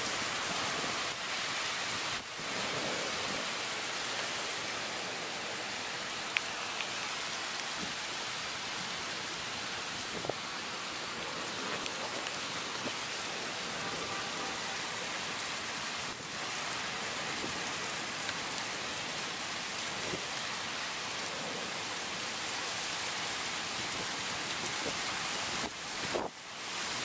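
Heavy thunderstorm rain pouring down in a steady, dense hiss, with a few sharp ticks of drops striking close by.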